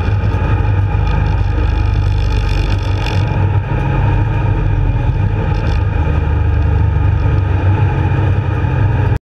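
Street stock race car's engine running steadily, heard from inside the cockpit with a deep low rumble, as the car circles the track after the race finish.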